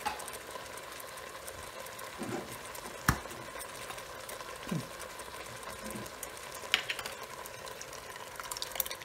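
Jar of pasta sauce being opened and handled over an electric rice cooker: one sharp click about three seconds in and a scatter of light clicks near the end, as the jar is tipped over the pot. Under it, a faint steady sizzle from the rice cooker browning meatballs.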